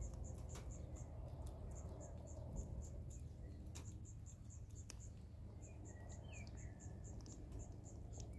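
Faint insect chirping, a high pulse repeating about four times a second in runs with short breaks, together with a few sharp crunches from a kitten chewing a mouse.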